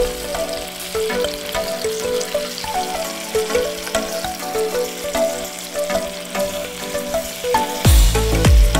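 Food sizzling and frying in a hot pan, a steady crackling hiss, under background music with a melody; a deep bass beat comes in near the end.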